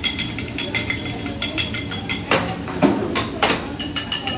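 Metal spatulas clinking and scraping on a hibachi griddle: a quick run of ringing metallic clicks, with a few louder clangs about two to three and a half seconds in.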